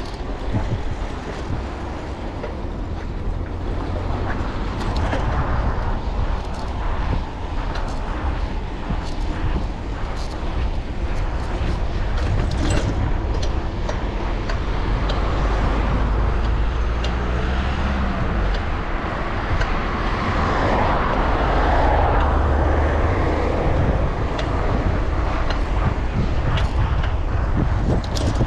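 Wind buffeting the microphone of a bicycle-mounted camera while riding, with a heavy low rumble and scattered short rattles and clicks.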